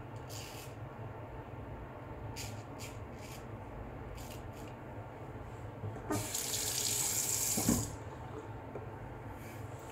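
A few short scrapes of a full hollow-ground Filarmonica straight razor through lathered stubble. About six seconds in, a tap runs into a sink for nearly two seconds, louder than the scrapes.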